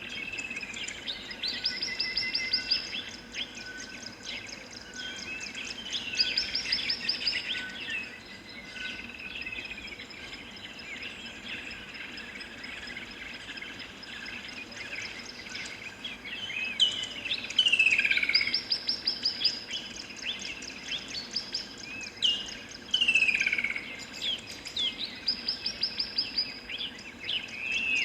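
Birds singing in repeated phrases of high trills, chirps and falling whistles over a steady outdoor hiss.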